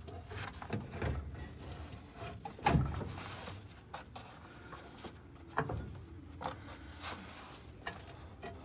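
Irregular metal knocks, clunks and scraping as a heavy tractor clutch assembly is wrestled into position up against the engine and frame. The loudest clunk comes about three seconds in.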